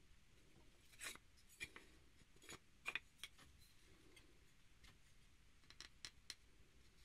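Faint handling noise: a few light clicks and taps as a beech plane body blank and a steel plane blade are held and turned in the hands, the sharpest a double click about three seconds in, with near silence between.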